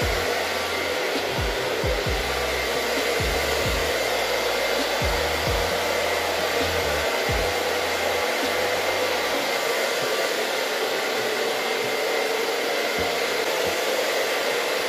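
Handheld hair dryer running steadily on its blow setting, a continuous rush of air with a faint steady whine in it, used to dry the hair upward.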